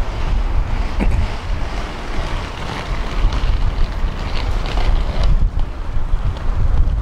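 Wind buffeting the microphone, a loud uneven low rumble, over open-air street noise.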